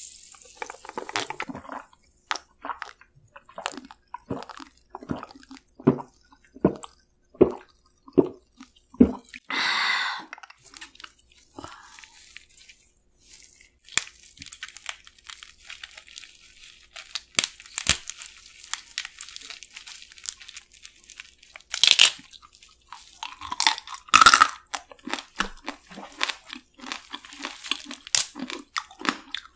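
About ten gulps of soda in a steady run, swallowed one after another, then a short breath. After that a marinated crab is pulled apart by hand and eaten, with crunching, chewing and mouth noises and two sharper cracks of shell in the second half.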